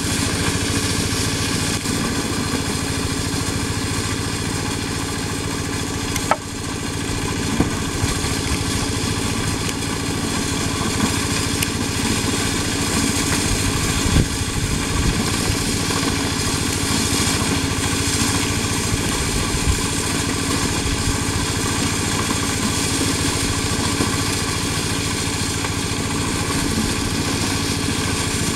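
Motorised corn sheller running steadily, its small engine and threshing drum making a continuous drone, with a few short sharp clicks about six, eight and fourteen seconds in.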